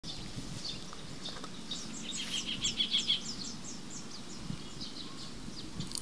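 A bird calling a quick run of short, high, falling chirps, loudest about two to three seconds in and fading out near the end, over a steady outdoor hiss.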